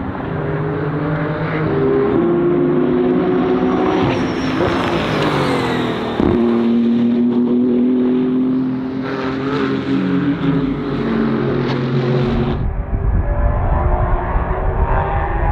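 BMW M4 GT3 race car engine running, its note gliding up and down in pitch as it revs. About thirteen seconds in, the higher tones drop away and a deep low rumble takes over.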